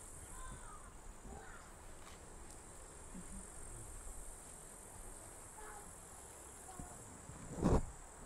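Steady high-pitched chirring of crickets or similar insects, with a few faint short chirps. A single loud thump comes near the end.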